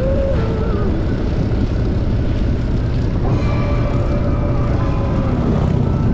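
Harley-Davidson motorcycle riding: a steady engine rumble and wind rush, with music playing underneath.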